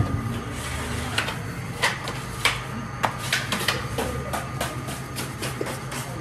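Irregular sharp knocks and slaps of bread-making work, several a second, over the steady low hum of a rotating bread oven.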